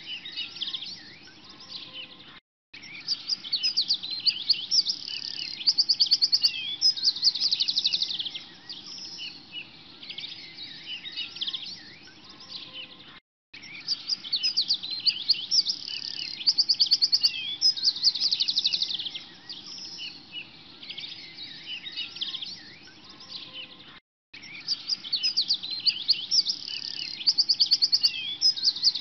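Many birds chirping and trilling together, with quick even trills standing out. The recording is a loop: it cuts out for a moment about every eleven seconds and the same stretch of birdsong starts again.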